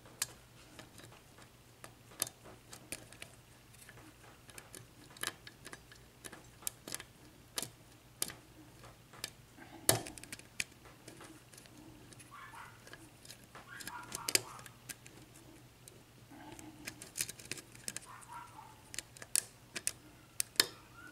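Lock pick and tension wrench working the pins of a Sargent 6-pin lock cylinder: scattered small metallic clicks and taps at an uneven pace, a sharper click just before ten seconds in.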